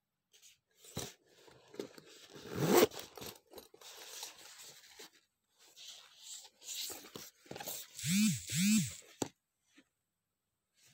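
Metal zipper of a waxed-canvas toiletry bag being unzipped in several separate pulls, each a short zip that rises and falls in pitch, the loudest near three seconds and two quick ones near the end. Between the pulls the stiff canvas rustles as the bag is handled and opened.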